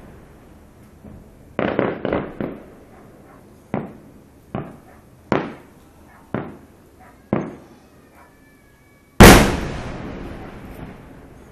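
Aerial fireworks shells bursting: a quick cluster of four bangs, then single bangs about a second apart, and near the end one much louder boom that dies away slowly.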